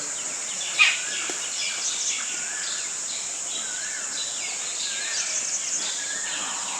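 Steady high-pitched drone of crickets or cicadas with scattered short bird chirps and whistles over it, and one sharp click a little under a second in.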